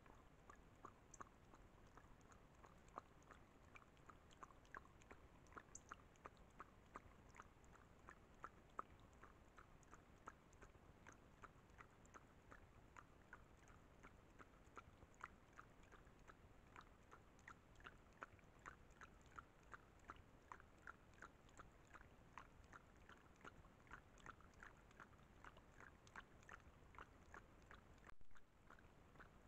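Puma lapping water from a small pond: a steady run of faint wet laps, about three a second. A brief louder noise comes just before the end.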